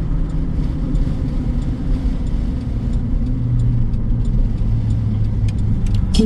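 GMC Sierra pickup driving along a road, heard from inside the cab: steady engine and road rumble. The engine's hum shifts to a lower note about three seconds in.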